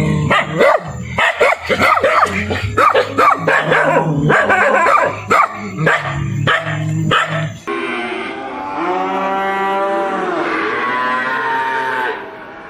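Dogs barking in quick, overlapping barks, then about two-thirds of the way through an abrupt cut to a cow mooing in one long, drawn-out low call.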